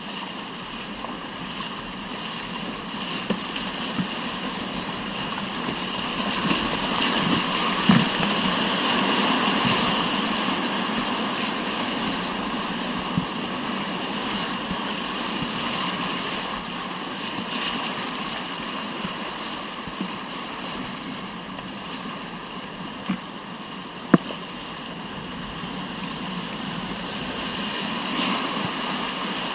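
Steady rush of whitewater on a mountain river, swelling louder for a few seconds about a third of the way in, with a few sharp knocks.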